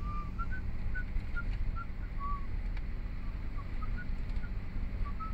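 Low steady rumble of a car moving slowly through truck traffic, heard from inside the cabin. Over it runs a string of short high chirps, two or three a second, varying slightly in pitch.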